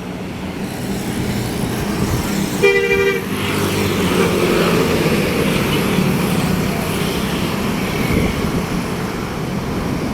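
A bus horn gives one short blast about two and a half seconds in, over the engine and road noise of a passing bus, which grows louder just after the blast and stays loud.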